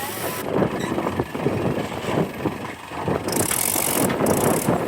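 Diesel engine of a JCB 3DX backhoe loader running while it works, a steady rough machine noise.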